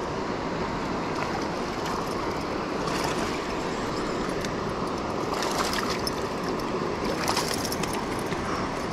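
Steady rush of water pouring through a dam spillway, with a few short crackling bursts about three seconds in, around five and a half seconds and near seven seconds.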